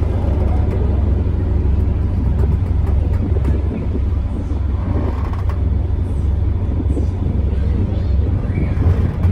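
Sightseeing boat's engine running, a steady deep drone heard on board.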